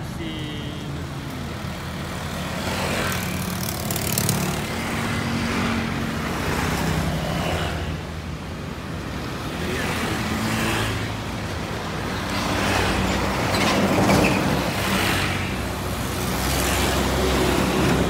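Road traffic passing close: motor scooters, cars and a truck drive by one after another, their engines swelling and fading with each pass over a steady low hum.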